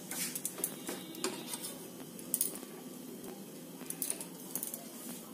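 Faint scattered clicks and light taps from a non-stick frying pan on a gas stove while a flatbread cooks on medium heat, over a low steady hiss.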